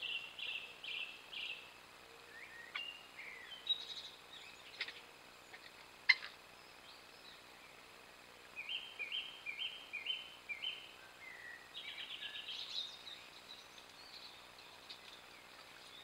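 Song thrush singing, each short phrase repeated several times over. A few sharp clicks come between the phrases, the loudest about six seconds in.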